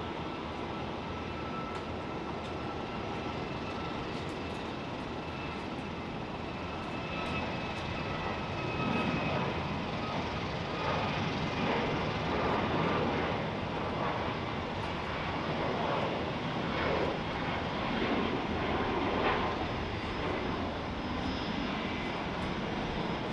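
Boeing 737 MAX 8's CFM LEAP-1B jet engines at takeoff thrust during the takeoff roll and liftoff: a steady jet noise with a thin whine at first, growing louder and rougher, with a fluctuating rumble, from about eight seconds in.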